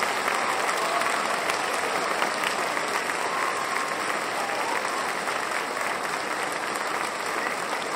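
Large audience giving a standing ovation, dense steady applause that eases slightly toward the end.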